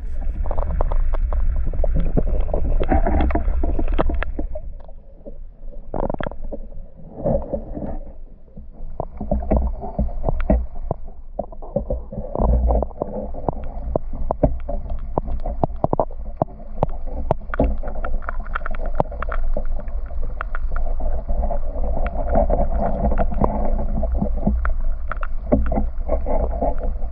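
Muffled underwater sound from a microphone submerged in a lake: a low rumble of moving water, with many small clicks and knocks throughout. It starts abruptly as the microphone goes under, and dips for a few seconds early on before steadying.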